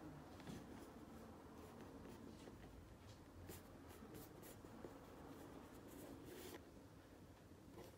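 Near silence: quiet room tone with faint, scattered scratchy rustles.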